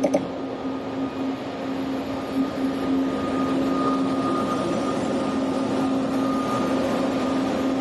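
ÖBB class 1116 Taurus electric locomotive moving slowly past on a platform track. It gives a steady low electrical hum with a fainter higher whine over running noise.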